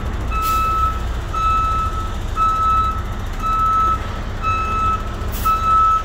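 Heavy truck's backup alarm beeping about once a second, six steady single-pitch beeps, over the low rumble of the truck's engine running. A short high hiss comes about half a second in and again near the end.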